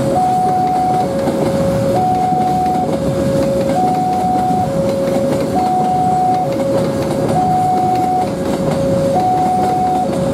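Container freight train rolling past on loaded flat wagons, a steady rumble of wheels on the track. Over it, the level-crossing warning alarm repeats a two-tone signal, high then low, each tone lasting just under a second.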